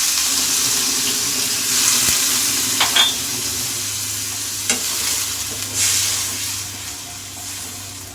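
Onion-and-spice masala sizzling in a frying pan after a little water has gone in, with a few sharp clicks of a spoon against the pan. The sizzle slowly dies down.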